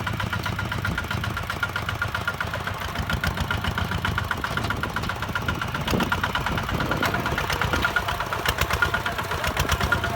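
Single-cylinder diesel engine of a Kubota ZT-150 two-wheel tractor running with an even chugging beat. Its pulses get louder and harder in the second half.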